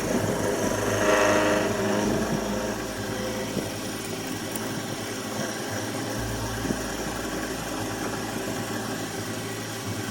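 CJ0618 mini lathe running steadily, its motor humming with a continuous machining noise.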